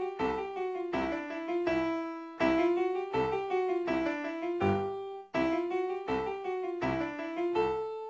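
Piano music: a melody over regularly struck chords.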